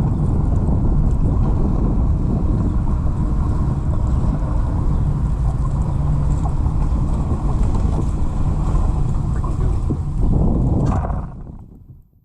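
Boat outboard motor running under way, with heavy wind buffeting the microphone; the sound fades out near the end.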